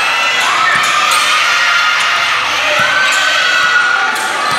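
Crowd of spectators shouting and cheering, many voices at once, with a ball bouncing on a hard court floor a few times.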